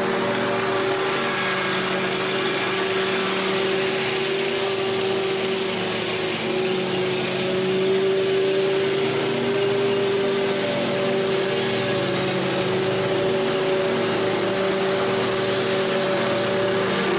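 Scag Tiger Cat zero-turn mower running with its blades engaged, cutting tall wet grass: a steady engine and blade hum that gets a little louder about halfway through as the mower comes closer.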